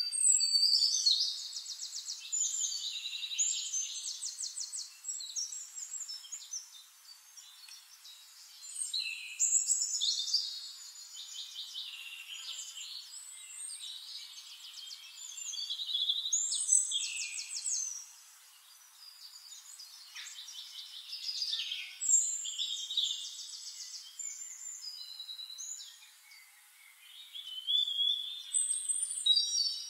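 Songbird singing: phrases of rapid, high trills and chirps, a new phrase starting every six to nine seconds.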